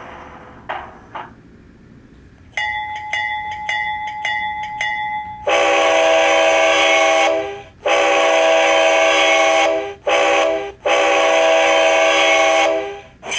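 HO scale diesel model's LokSound DCC sound decoder playing through an ESU 50348 passive-radiator speaker: the locomotive bell rings for about three seconds, then the horn blows long, long, short, long, the grade-crossing pattern. A fading sound and two short clicks come just before the bell.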